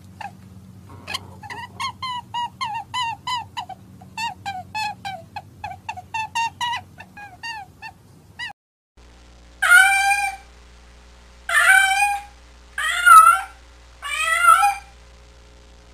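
A rapid run of short high squeaky calls, about three a second, for the first half. Then a domestic cat meows four times, each meow loud and drawn out, rising and then falling.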